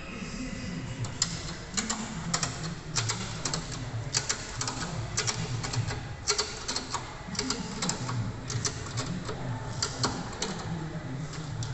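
Metal ratchet clicking in irregular runs of quick clicks as a bolt on the bridge saw's tilting head is loosened and the head is set toward its 45° position. A low steady hum runs underneath.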